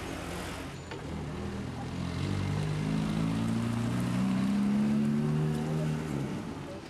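A car driving past close by, its engine hum swelling and rising slightly in pitch to a peak about five seconds in, then fading away.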